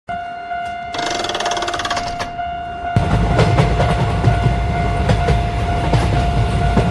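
Railway sound effects: a steady, high electronic tone throughout, a brief buzzing burst about a second in, then a train rumbling and clattering past from about three seconds in.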